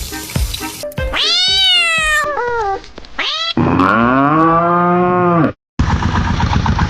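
A cat meows twice, a rising-and-falling meow followed by a shorter one, then a long, much lower drawn-out call with an arched pitch follows. Music with a beat plays at the start and again near the end.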